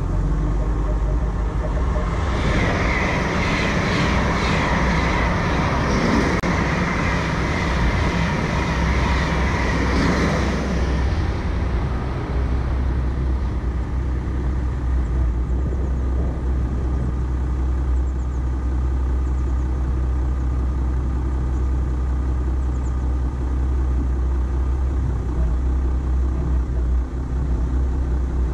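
Volkswagen Amarok pickup driving slowly off-road with a steady low engine rumble. From about two to eleven seconds a louder rushing noise with some crackle rides over it, then the rumble carries on alone.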